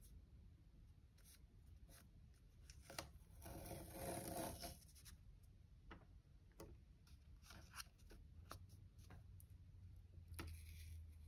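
Faint rubbing and light ticks of washi tape being unrolled and pressed onto a planner page, louder for a second or two about three seconds in.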